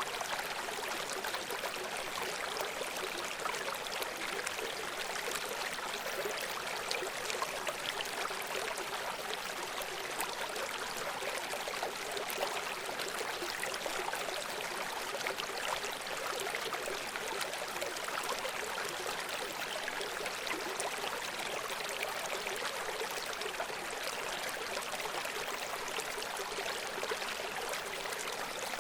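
Stream water running steadily over rocks, a continuous bright splashing and babbling without change.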